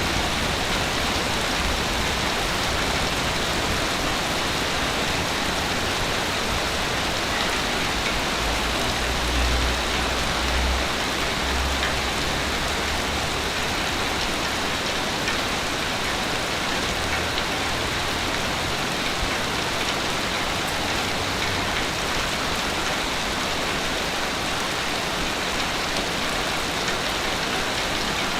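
Ocean surf washing steadily onto a beach, with a deeper rumble of a breaking wave swelling about eight to twelve seconds in.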